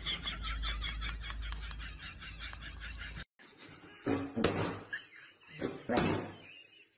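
Two Siberian huskies vocalizing at each other in several short, loud bursts over the last three seconds. Before that, a fast, even pulsing at about nine beats a second with a low hum, cut off abruptly about three seconds in.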